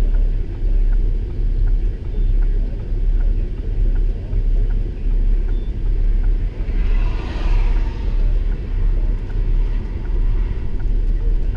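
Steady low rumble inside a stopped vehicle, its level rising and falling slightly. About seven seconds in, a car passes on the road with a hiss that swells and fades.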